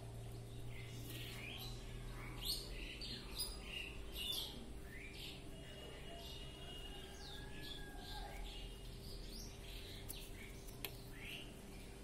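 A myna calling: a run of short chattering calls, squawks and brief whistles, busiest in the first half. A faint steady hum lies underneath, and a single sharp click comes near the end.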